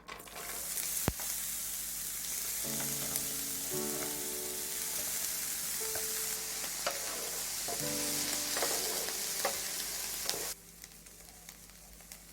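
Food frying and sizzling on a hot plate, with scattered clicks and taps of a utensil stirring it. The sizzle drops away suddenly near the end.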